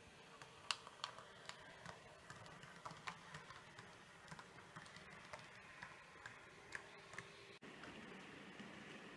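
H0 model railcar rolling over the layout's track, its wheels giving faint, irregular clicks as they cross rail joints and turnouts. The clicking stops near the end, leaving a faint steady hiss.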